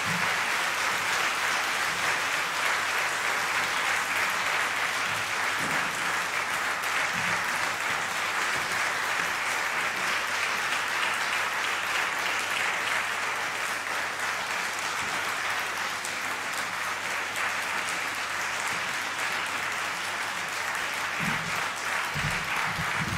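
Audience applauding, steady and sustained, easing a little in the second half.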